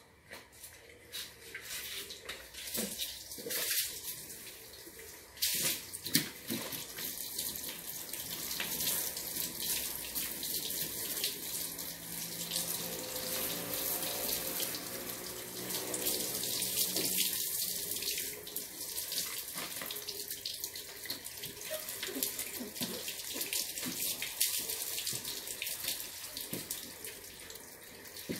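Water from a garden hose spraying onto a car's body and windows, rinsing it down: a steady hissing splash that grows louder after about five seconds.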